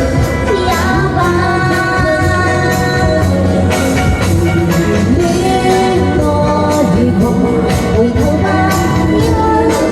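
Pop song with full band accompaniment and a steady beat, a melodic line gliding over it.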